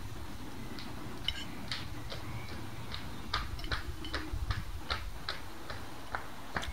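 Knife and fork clinking and scraping on a plate as food is cut, a string of light, irregular clicks about two a second, starting about a second in.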